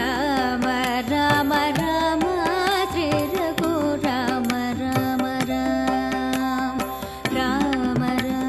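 Carnatic devotional song in raga Yamuna Kalyani, set to Adi tala. A melodic line slides and wavers over a steady drone, with regular hand-drum strokes keeping the rhythm.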